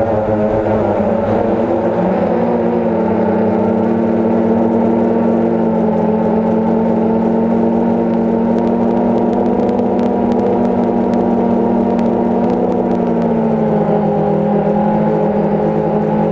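A DJI Phantom quadcopter's motors and propellers, heard through its own onboard camera: a steady buzzing hum with several overtones. Its pitch steps up about two seconds in and drops back down near the end as the throttle changes.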